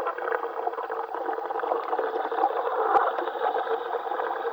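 Steady underwater bubbling and air noise from a working diver, heard over the diver's communication radio.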